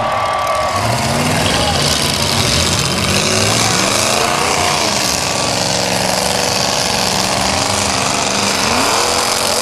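Several demolition derby cars' engines revving and running, their pitch rising and falling as they drive and push each other.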